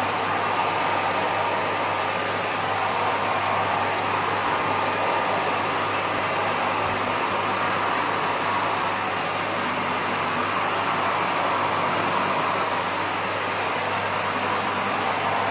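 Vacuum cleaner running steadily: a constant motor whine and rush of air that stays level throughout.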